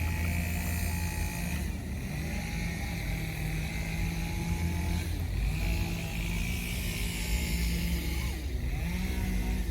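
An engine running steadily, its pitch shifting a few times as its speed changes.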